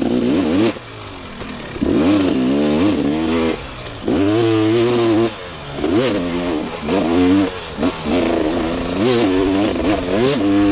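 Dirt bike engine revving up and dropping off again and again as the rider opens and closes the throttle, about five surges with short quieter dips between them.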